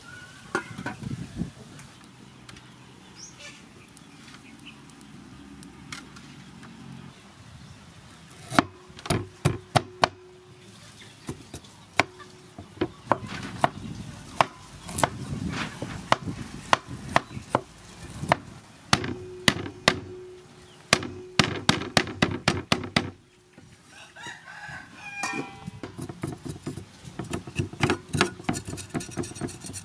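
Heavy kitchen knife chopping garlic on a round wooden cutting board: runs of sharp knocks, starting about a quarter of the way in. Near the end, finer scraping ticks as the knife peels ginger root.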